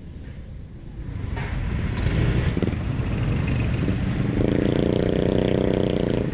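Yamaha NMAX scooter's single-cylinder engine pulling away, with wind noise on the microphone. Both grow louder about a second in, and the engine note settles into a steady drone for the last two seconds.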